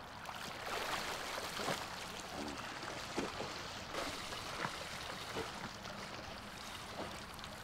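Swimming-pool water splashing and lapping as a swimmer swims freestyle, with irregular splashes of the arm strokes over a steady wash of moving water.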